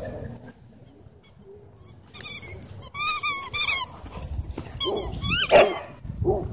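Dogs at play: a dog lets out high-pitched, wavering squealing whines about two seconds in, then one louder falling cry near the end.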